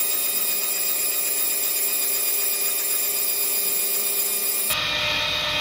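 Starter motor cranking a freshly rebuilt Rover 4.0 V8 with the spark plugs out, spinning it fast and evenly to build oil pressure before first start. It is a steady, loud whine that gains a lower rumble near the end.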